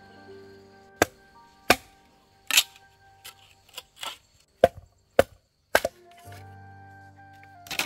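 Sharp chopping blows on wood, about ten irregular strikes with a pause near the end, over background music of held tones.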